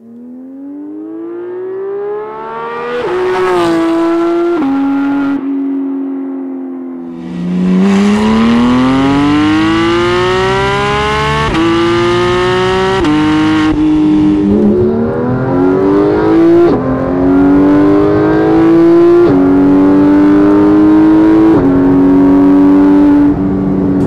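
Porsche 991 GT3 flat-six through an Armytrix valvetronic exhaust, accelerating hard through the gears. The engine note climbs steeply in pitch, then drops at each upshift and climbs again, several times in a row.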